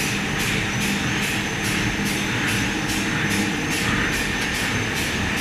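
Sinomech A400 solventless laminating machine running: a steady mechanical drone with a low hum, and a light ticking about three times a second over it.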